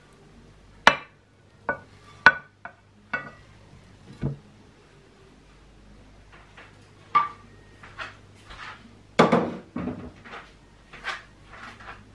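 A pan and utensils knocking and clinking against a ceramic plate as a cake is turned out of the pan: about fifteen sharp, separate strikes, some ringing briefly, with a cluster of them a little after nine seconds in.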